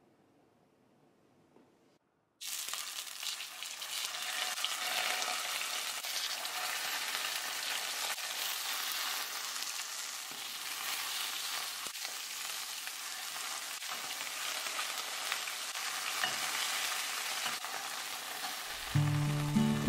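Pieces of desalted cod frying in olive oil in a stainless-steel frying pan: a steady sizzle that starts suddenly about two seconds in. Background music comes in near the end.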